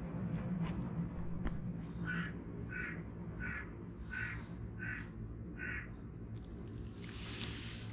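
A crow cawing: six short caws in an even series, about one every 0.7 seconds.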